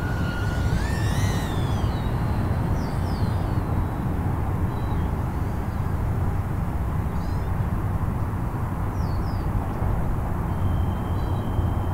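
Outdoor ambience: a steady low rumble with scattered bird chirps. A thin high whine, the motors of a tiny 75 mm whoop drone, rises in pitch in the first second or two, and a steady high whine comes in near the end.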